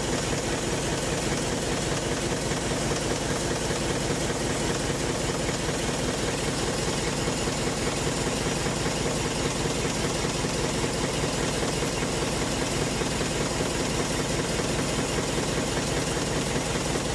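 Steam launch Consuta's reciprocating steam engine running steadily, its spinning cranks, connecting rods and valve gear making a fast, even mechanical beat.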